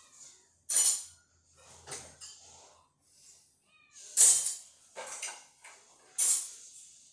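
Dishes clattering as they are loaded into a dishwasher: several sharp clinks, the loudest about a second in, about four seconds in and about six seconds in. A house cat meows faintly between them.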